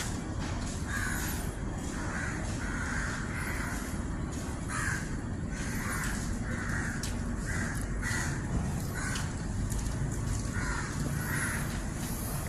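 Crows cawing over and over, short harsh calls coming about once or twice a second, over a steady low background rumble.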